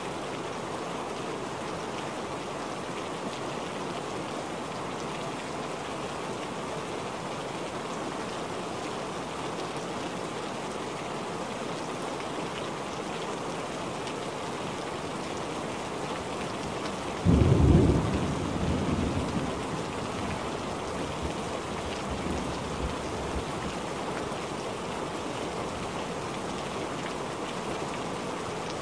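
Steady heavy rain falling on standing water. About two-thirds of the way through, a sudden thunderclap breaks in and rumbles away over a few seconds.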